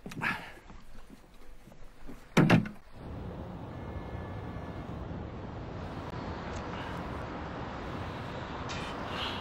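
A wooden cabin door bangs shut with a heavy thump, then a steady low rumble runs on.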